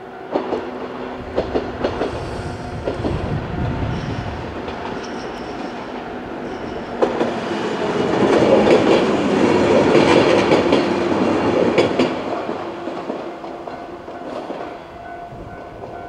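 Two-car 103-series electric train passing over a level crossing, its wheels clacking, loudest about 8 to 12 seconds in and then fading. The crossing's warning bell rings at the start and can be heard again as the train dies away.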